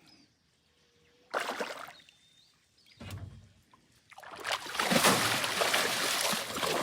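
A hooked wolf fish splashing at the water's surface beside the boat: two short splashes, then continuous thrashing and splashing from about four seconds in.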